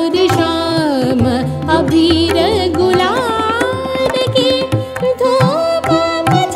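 Indian classical Hori song for Kathak dance: a singer's voice gliding through ornamented phrases, holding one long note partway through, over tabla strokes.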